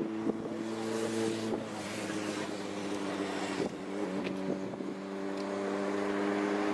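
An engine droning steadily, its pitch shifting a couple of times, with wind buffeting the microphone.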